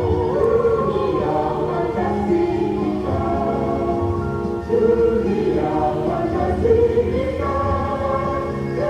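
Background music: a choir singing held, slowly changing chords.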